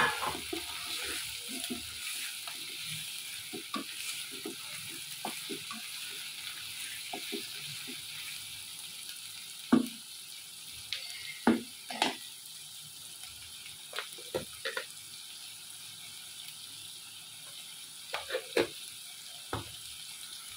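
Pieces of kakila (freshwater garfish) frying with sliced onion in oil in a frying pan, a steady sizzle. A wooden spatula stirs and knocks against the pan, in a quick clatter at the start and in scattered louder knocks later on.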